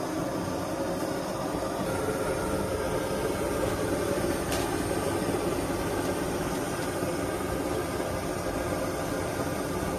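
Kerosene pressure stove burner running with a steady roar under the tawa. There is one light tick about four and a half seconds in.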